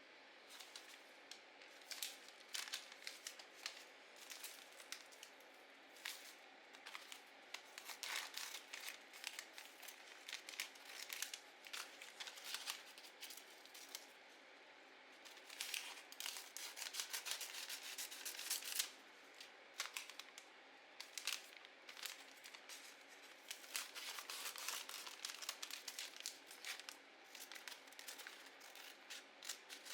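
Paper crafting close to the microphone: scissors snipping and paper tearing and crinkling, in irregular clusters of sharp little rustles with short pauses between them.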